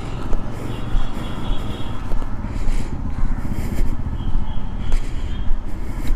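Street traffic ambience: a steady low rumble of passing vehicles, with a couple of faint high tones about a second in and again past the middle.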